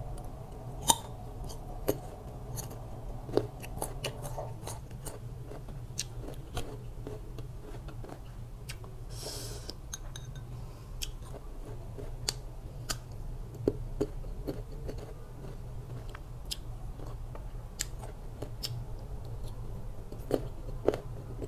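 Crunching and chewing of crisp young green mango slices, with sharp clicks of a metal fork against a ceramic bowl, scattered irregularly and loudest in the first few seconds. A steady low hum sits underneath.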